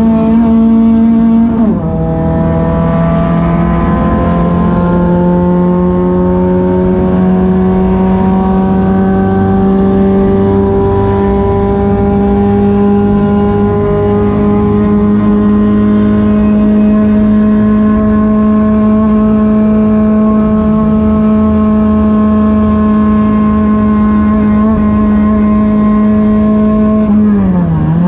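Race car engine heard from inside the caged cockpit, running hard. The pitch drops sharply about two seconds in, as at a gear change, then climbs slowly and steadily for a long stretch before dropping again near the end.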